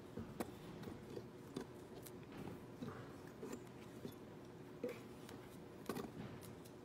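Pages of a Bible being turned and the book handled: faint rustles with scattered small clicks and taps, over a low steady hum.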